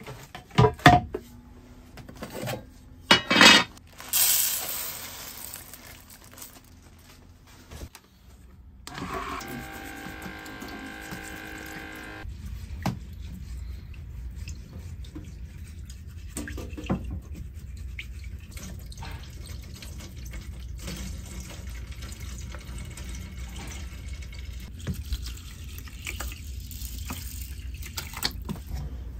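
Rice being washed in an aluminium mess tin at a small stainless camper sink: water runs and pours, with clinks and knocks of the tin and utensils. Near the end, water is poured from a plastic bottle into the tin.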